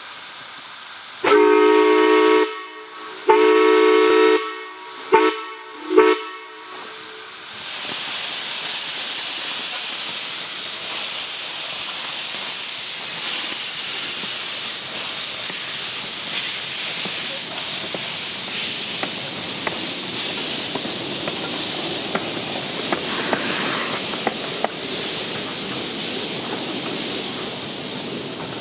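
A miniature steam locomotive's chime whistle sounds four blasts, two long, then a short and a longer one, each a chord of several notes. About seven seconds in, the locomotive starts blowing off steam with a loud, steady hiss that eases slightly near the end.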